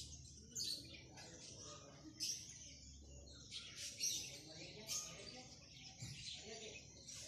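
Budgerigars chirping faintly, a run of short, high chirps coming in irregular bursts.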